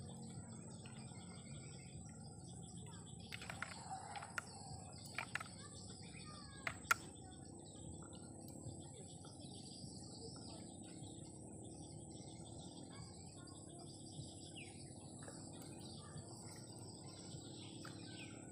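Quiet rural ambience of small birds chirping and insects, with a steady high insect whine throughout. A few sharp clicks and taps come between about three and seven seconds in.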